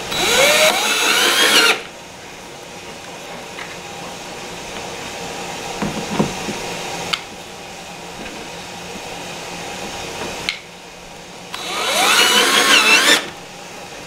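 Power drill/driver driving screws through a metal cabinet hinge plate into wooden plugs glued into the door, in two short runs with the motor rising in pitch as it speeds up: one right at the start and another around twelve seconds in.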